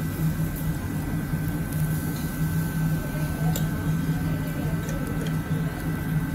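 Pork belly slices cooking on a tabletop charcoal grill, with a few sharp crackles from the fat, over a steady low hum in the room.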